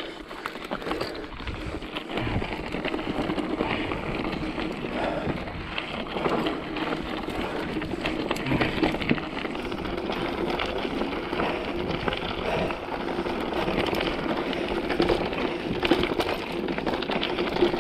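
Mountain bike ridden over rough dirt singletrack: a steady rush of tyre noise with many small rattles and knocks from the bike.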